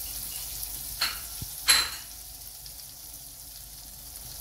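Freshly added butter melting and sizzling in a hot frying pan: a steady fine hiss with two louder crackles, about one second and nearly two seconds in, the second the loudest.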